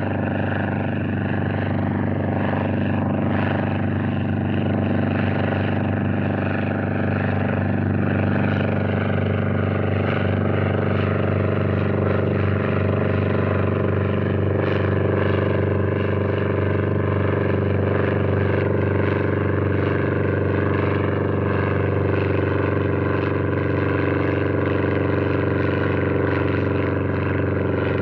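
Single-prop Demoiselle monoplane circling overhead, its propeller engine droning at a steady level.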